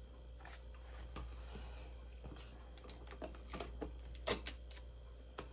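Hands handling cardstock on a tabletop: faint rustles and light taps, with a cluster of sharp little clicks about three to four and a half seconds in.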